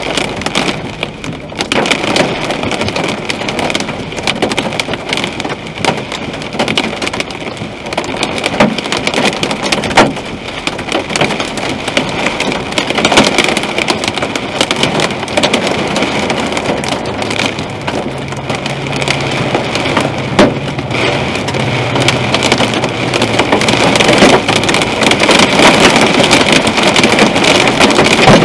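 Hail and rain drumming on a car's roof and windshield: a dense, loud patter with many sharp separate hits, growing heavier near the end.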